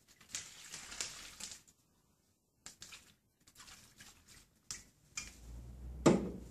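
Liquid poured from a glass conical flask into a plastic Whirl-Pak sample bag, splashing in for about a second and a half, with small crinkles and clicks of the plastic bag. Near the end there is a sharp knock as the glass flask is set down on the table.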